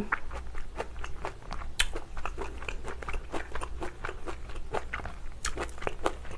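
Close-miked chewing of a mouthful of pork kimchi stew, with a steady run of short, wet, sharp mouth clicks, a few of them louder.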